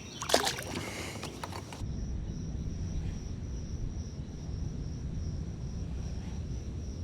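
Wind buffeting the microphone in a kayak, a steady low rumble, over a constant high-pitched insect drone. A short clatter of knocks and rustling comes in the first second or two.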